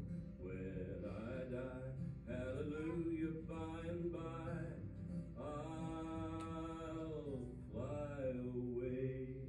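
Slow recorded song with a solo voice singing long held notes that glide between pitches, the longest note held for about two seconds in the middle; the song ends near the end.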